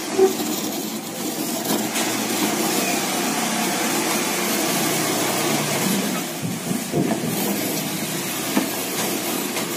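Hand-cranked coconut grater: a spiked drum in a wooden box turned by a crank, shredding a chunk of coconut flesh pressed against it, with a steady scraping grind. The grind dips briefly, with a few knocks, about six to seven seconds in.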